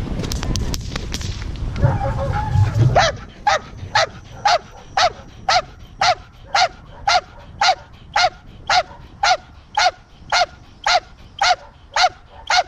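A dog doing a hold and bark on a protection helper: a steady run of single loud barks, about two a second, starting about three seconds in. Before the barking there is low rumbling noise and a few clicks on the microphone.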